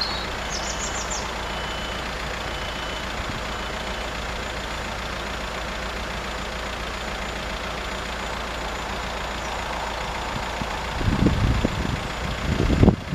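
Steady hum of road vehicle engines idling. A few high bird chirps come about a second in, and gusts of wind buffet the microphone near the end.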